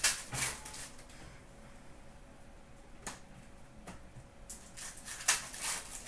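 Trading cards being handled and laid down on a glass counter: brief swishes and light taps, a few at the start, one or two in the middle, and a louder cluster near the end.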